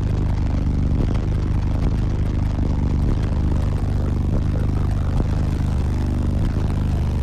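Deep bass played at high level through six Sundown ZV5 15-inch subwoofers, heard inside the vehicle's cabin: a heavy, steady low-end drone whose low notes shift every so often.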